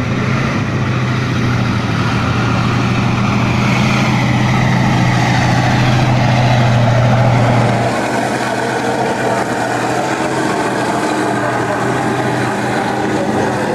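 T-72 tank driving past, its diesel engine running with a steady low drone that swells to its loudest about seven seconds in, then drops suddenly to a quieter rumble.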